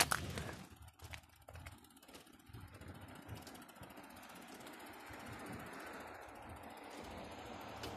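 A sharp clack at the start and a few lighter knocks, then steady outdoor noise with light, rapid mechanical ticking.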